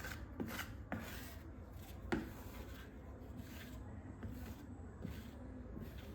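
Soft, scattered rubbing and scraping sounds of something handled on a surface, with one sharp click about two seconds in.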